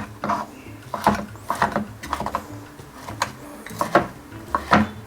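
Kitchen utensils knocking on a cutting board and bowl while diced raw chicken is handled: sharp, irregular knocks about every half second.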